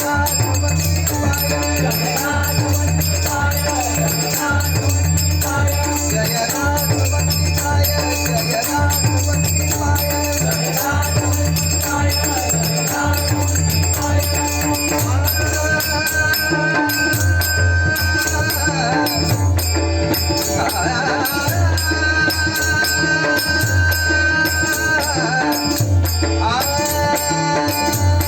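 Bhajan ensemble music: a steady drum beat with jingling cymbals or rattles, and long held melodic notes in the second half.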